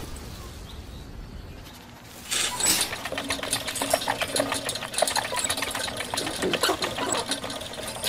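Wire hamster exercise wheel spinning fast on its axle with a rapid clicking rattle, starting about two seconds in.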